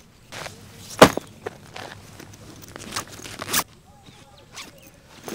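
A backpack being handled: a sharp thud about a second in, then rustling and scraping as the bag is opened and searched, dying down near the end.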